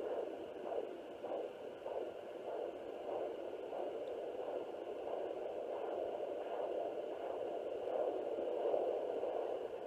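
Home fetal Doppler's speaker giving out a pulsing heartbeat, a little under two beats a second, the pulses blurring together later on. It is the mother's own heartbeat picked up by the probe, not the baby's.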